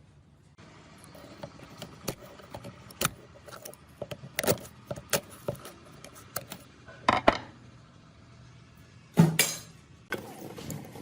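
Irregular clinks and knocks of small hard parts being handled and set down, with three louder clattering rattles, the last near the end the loudest.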